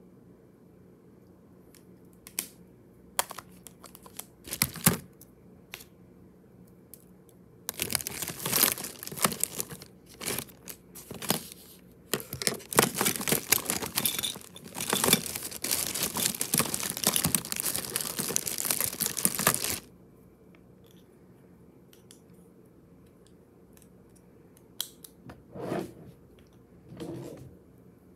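Close handling noises of makeup items and packaging: a few sharp clicks, then about twelve seconds of dense crinkling and rubbing, then a few more clicks and short rustles near the end.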